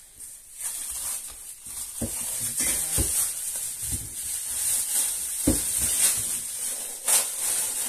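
Plastic bag crinkling and rustling as frozen minced meat is handled in it, with a few dull knocks of the frozen block.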